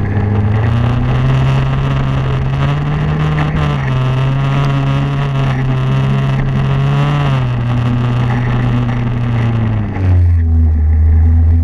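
Snowmobile engine running, its speed rising and falling several times. About ten seconds in it drops to a deeper, louder steady drone.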